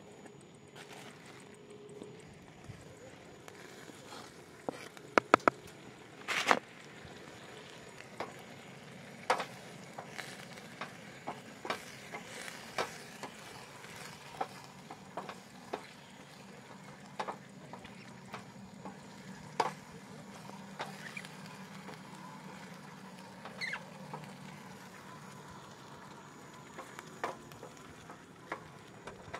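Knife strokes on a cutting board as red peppers are chopped: irregular sharp knocks every second or two, a few in quick runs, over the steady low sizzle of the pan.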